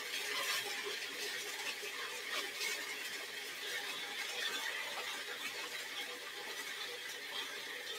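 Cuisinart food processor running steadily, its blade chopping raw almonds, garlic and carrots into a coarse, crunchy mix.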